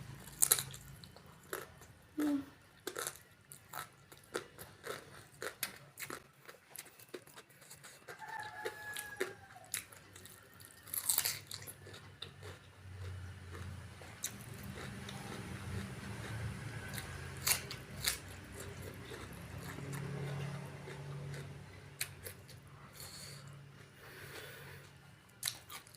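Close-up eating sounds: crisp bites and chewing of raw vegetables with rice, in many short crunches and wet chewing.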